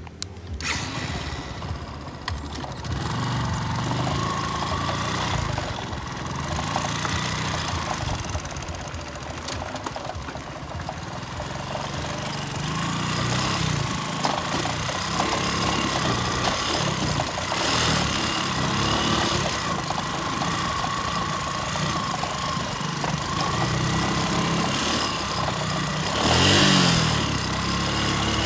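An engine or motor running continuously, with a wavering whine over its steady noise and a louder swell near the end.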